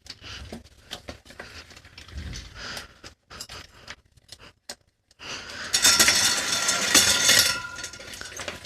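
Rear wheel being pulled out of a mountain bike frame: light metal clicks and knocks at first, then about five seconds in a loud, dense metallic clatter lasting about three seconds.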